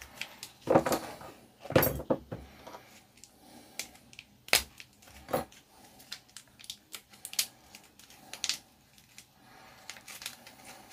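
Irregular clicks, taps and short plastic rustles from handling new transistors and their packaging on a workbench.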